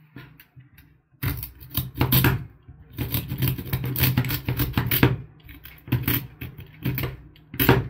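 Small folding saw blade of a stainless-steel multitool sawing through two stacked layers of thin wood: rasping back-and-forth strokes that start about a second in, come fast in the middle, and turn slower and more spaced out near the end.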